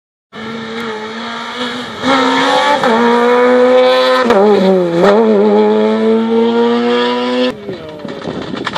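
Rally car engine running hard as it passes close by, its pitch dipping a few times and then climbing steadily under acceleration. The engine sound cuts off suddenly about seven and a half seconds in, leaving a rougher background noise.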